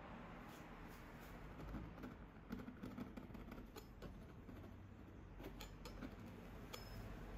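Faint scratching and ticking of a steel palette knife drawn across a painted canvas, in small irregular clusters.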